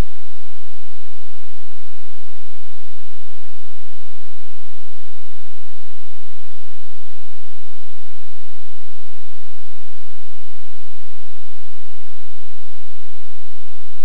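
Steady electrical hum with hiss, unchanging throughout, with a few steady tones in it and no other events.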